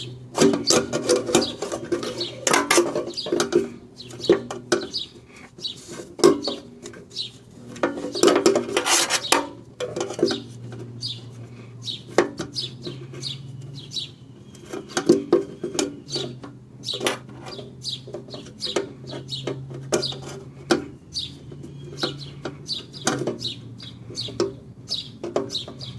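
Irregular metal clinks, knocks and scraping as an aftermarket fuel-gauge float and sending unit are worked and maneuvered into a motorcycle fuel tank's opening.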